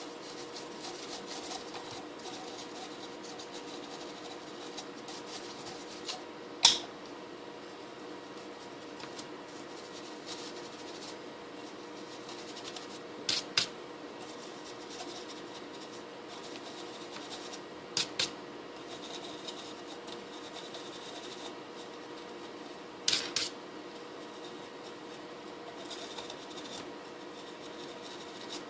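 Quiet rubbing and scratching handling noise on a hard-drive tray being cleaned. Four sharp clicks come at intervals; the first is the loudest and the other three are quick doubles.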